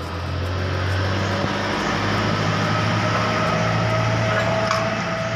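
A motor vehicle's engine running, a steady low hum with a faint higher tone, swelling over the first second and easing off near the end.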